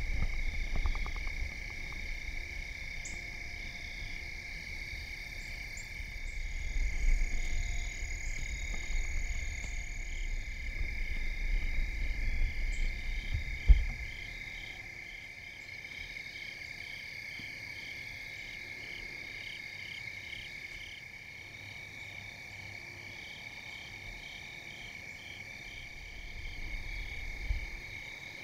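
Evening insect chorus: a steady high trill with a rhythmic pulsing chirp above it. A low rumble runs through the first half, ending with a single sharp knock about halfway through.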